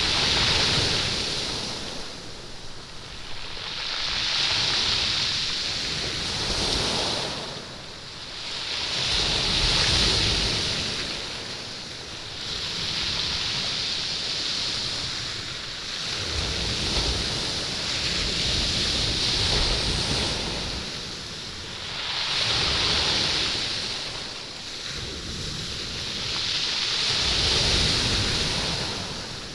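Waves washing up and back over a stony beach, the stones rolling in the surf. The sound swells and eases every three to five seconds, each surge a hiss over a low rumble.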